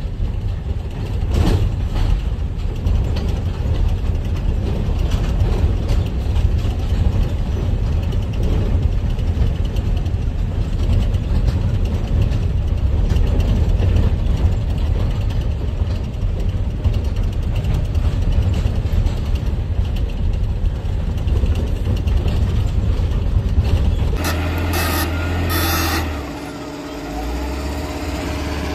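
Heavy diesel truck under way, with a steady low engine and road rumble heard from inside the cab. Near the end the sound changes: a couple of brief hisses, then a quieter, steadier running with a humming tone.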